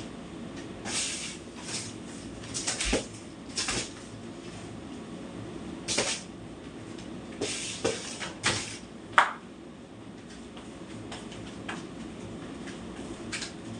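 Broom sweeping a tiled floor in short, irregular swishing strokes, with the dustpan knocking against the floor now and then. There is a sharper, louder knock with a brief ring about nine seconds in.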